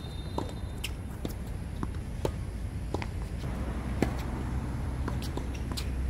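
Tennis rally on an outdoor hard court: sharp pops of racket strings striking the ball and the ball bouncing, every second or so, over a low rumble that grows louder near the end.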